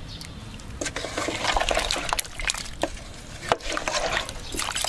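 Wooden ladle stirring pig's trotters and duck eggs in broth in a metal pot: liquid sloshing with a run of knocks and scrapes of the ladle against the pot, starting about a second in.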